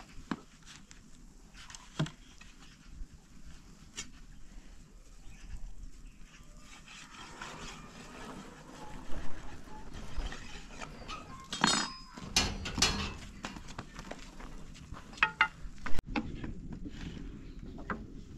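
Goats bleating now and then, loudest around two-thirds of the way through, among scattered sharp clicks and knocks, the loudest knock near the end.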